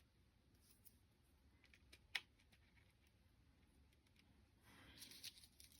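Near silence with faint ticks of small paper pieces being handled on a work surface: one sharper tick about two seconds in, and a soft paper rustle near the end.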